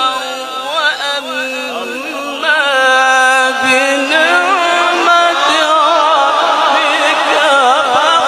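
A man reciting the Qur'an in a melodic, chanted tilawat style: long held notes with wavering, ornamented pitch, getting louder about two and a half seconds in.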